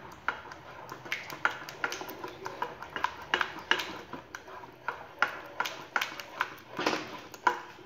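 Wooden spatula stirring thickening besan-and-buttermilk batter in a nonstick saucepan, scraping and knocking against the pan in quick, irregular strokes, about two to three a second.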